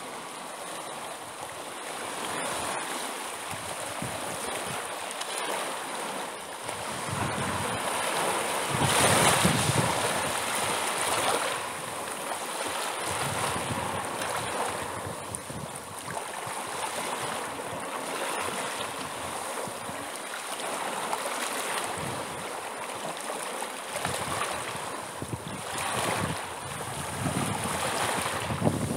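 Sea waves breaking and washing on a shore. The sound swells and eases every few seconds, with the loudest surge about nine seconds in.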